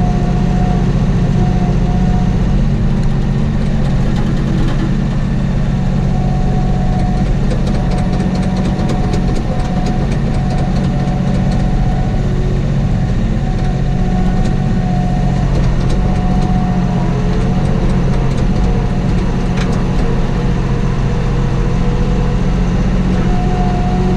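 Kioti compact tractor's diesel engine running steadily, heard from inside the closed cab, with a higher whine above it that comes and goes.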